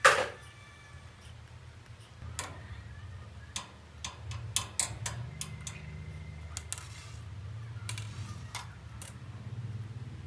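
A brief loud sound right at the start, then about a dozen sharp, irregular clicks and taps, clustered between about four and five seconds in, over a steady low hum.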